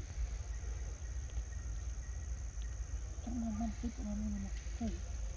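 Insects chirring steadily over a low rumble. A pitched voice is heard for about two seconds in the second half.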